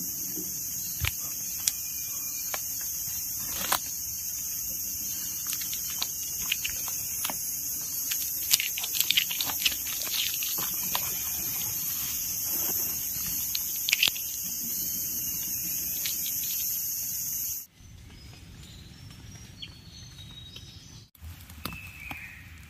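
Steady high-pitched insect chorus over scattered clicks, snaps and rustles in leaf litter and undergrowth. About 18 seconds in the drone stops abruptly, leaving fainter rustling.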